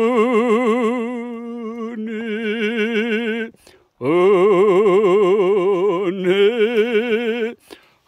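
A single singing voice holding long notes with wide vibrato in a Korean worship song. There are two sustained phrases, with a short break about three and a half seconds in and a step in pitch during the second phrase.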